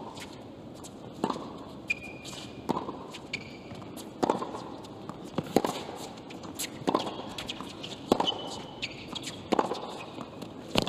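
Tennis rally on a hard court: the racket strikes the ball about every second and a half, eight or nine sharp pops in a steady back-and-forth, with short sneaker squeaks between some of the shots.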